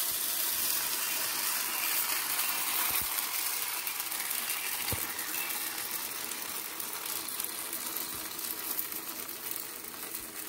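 Palappam batter sizzling and crackling in a hot appam pan just after being poured and swirled, the sizzle slowly dying down as the batter begins to set.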